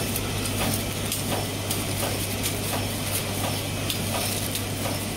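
Automatic cutlery flow-wrap packaging machine running, with a steady low hum and a string of sharp clicks about once or twice a second from its moving parts as packets are sealed and fed out.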